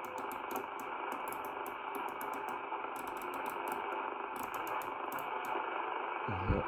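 Channel selector knob of a Marko CB-747 CB radio clicking through its detents in quick runs as it is turned, with short pauses between runs. Under it, a steady hiss of static comes from the radio's speaker as it steps through empty channels.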